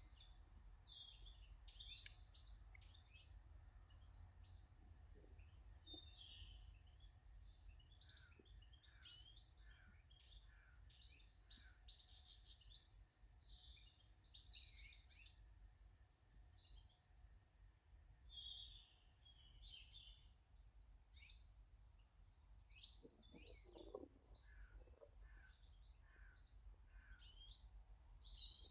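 Faint chirping and singing of several small garden birds, their calls overlapping. About three-quarters of the way through, a lower, deeper call sounds briefly.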